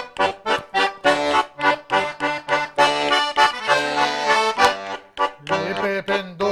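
Diatonic button accordion (organetto) playing a tune in short, detached chords about three a second, with a longer held chord about three seconds in.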